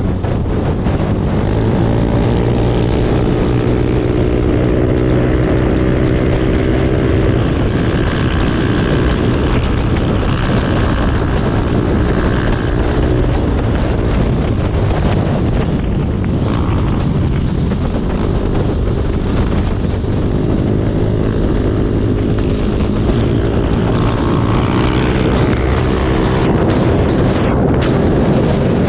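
Motorcycle engine running while riding, its pitch rising and falling with the throttle several times, over steady wind noise on the microphone.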